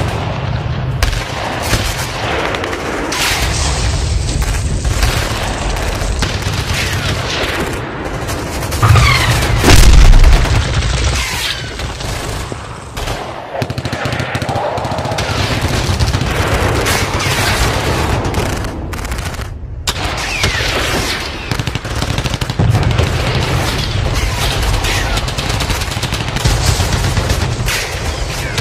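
Battle sound effects: dense machine-gun and rifle fire, with one loud explosion about ten seconds in.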